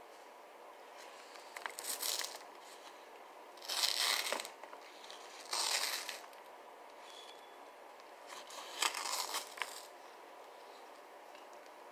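Cardboard cornstarch box being torn open by hand, strip by strip: four short ripping bursts, roughly every two seconds.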